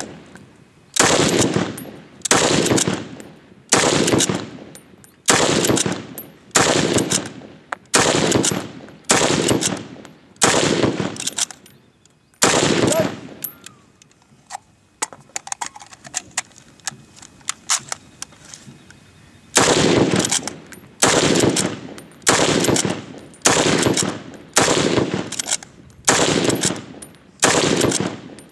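.303 Lee-Enfield bolt-action rifle in rapid fire, a loud shot about every 1.3 seconds as the bolt is worked between rounds. After about a dozen seconds the shots stop for some seven seconds of faint clicking while the rifle is reloaded, then resume at the same pace.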